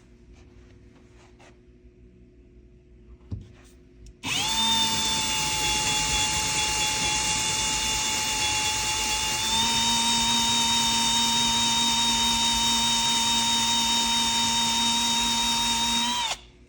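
Electric drill boring into a wooden board behind the wall, running steadily for about twelve seconds, its whine stepping up slightly in pitch about halfway through before it cuts off. A light knock comes just before the drill starts.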